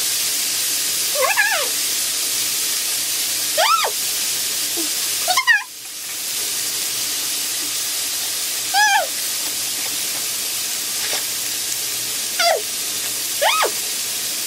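Pork neck sizzling on a grill in a steady hiss, while a dog whines in about six short high whimpers that rise and fall in pitch. The sizzle dips briefly about five seconds in.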